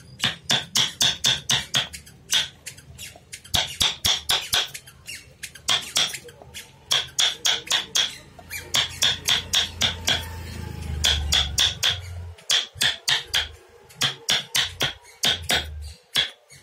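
A hammer tapping a chisel into wood in quick runs of strikes, about four to five a second, each with a bright metallic ring, broken by short pauses. A low hum swells in the middle.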